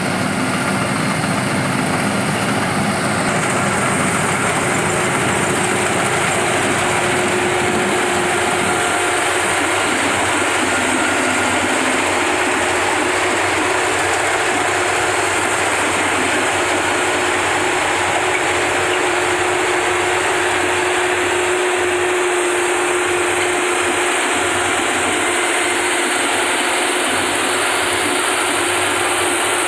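Rice-harvesting machine running steadily with its engine under load, a loud even mechanical noise with a faint steady hum.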